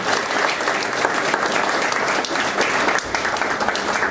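Audience applauding steadily, many hands clapping at the end of a lecture.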